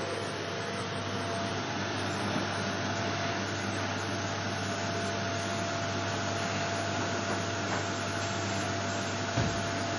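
Vacuum cleaner running steadily on a wooden floor: a constant rush of air with a low hum and a thin steady whine, a few faint knocks of the nozzle, and a low thump about nine seconds in.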